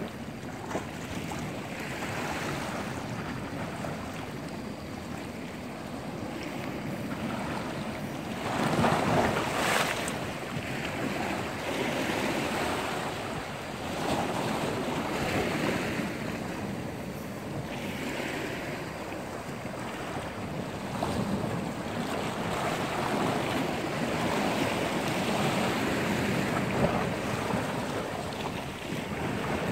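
Sea waves surging and washing against a rocky shore, rising and falling every few seconds, with wind buffeting the microphone. The biggest surge comes about nine seconds in.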